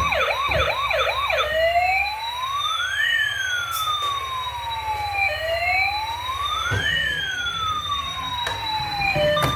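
Electronic police siren, clean and tone-like: a rapid yelp for the first second and a half, then switching to a slow wail that rises and falls twice. A few notes of a jingle start right at the end.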